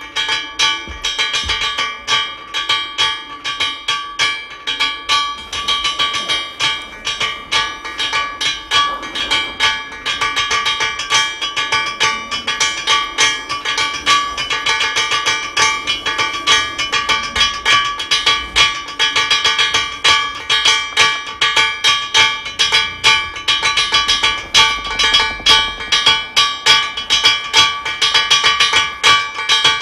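Rapid, driving metallic percussion: a steady run of struck, ringing tones at a few fixed pitches, several strikes a second, cutting off suddenly at the end.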